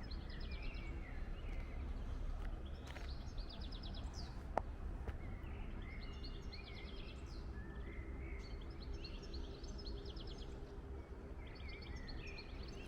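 Songbirds singing: about five short phrases of rapid repeated high notes, each trailing into lower notes, spread a second or two apart, over a steady low background rumble.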